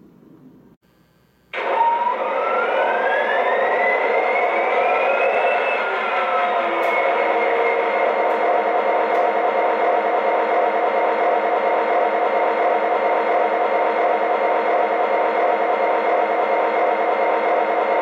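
Model diesel locomotive's onboard sound system (MTH RailKing O-gauge SD45) playing a diesel engine start-up: it cuts in suddenly after a second and a half of near quiet, with a whine rising in pitch for about four seconds, then settles into steady running. It comes through the model's small speaker, with no deep bass.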